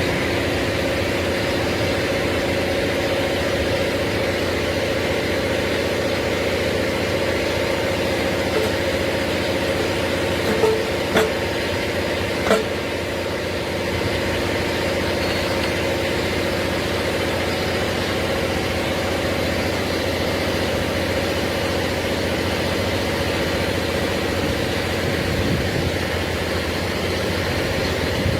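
Forklift engine idling steadily, with three short clicks or knocks a little before halfway through.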